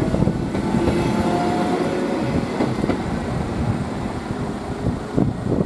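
SNCB local electric train passing over a level crossing: a steady rumble of wheels on rail, with sharp clacks as the wheels cross the rail joints. It eases slightly as the last car goes by.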